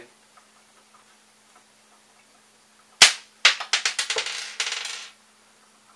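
A sharp knock, then a quick clatter of metal hand tools being picked through on a desktop.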